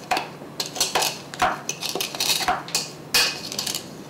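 A metal spoon stirring crumbly crumble mixture in a clear plastic food processor bowl, scraping and clinking against the bowl in a quick, irregular series of strokes.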